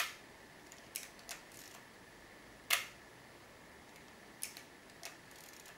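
Leica M3 rangefinder's cloth focal-plane shutter being released several times: short, soft clicks, the two loudest at the start and a little before halfway, with fainter clicks between and after.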